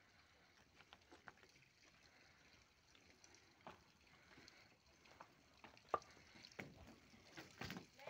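Near silence broken by scattered faint crunches and clicks: footsteps on loose stone chips and gravel. There is a sharper click about six seconds in and a few more scrapes near the end.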